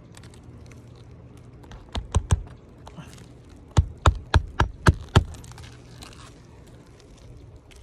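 Roofing nails being hammered into an asphalt shingle. There are three quick strikes about two seconds in, then a run of six faster strikes a second and a half later.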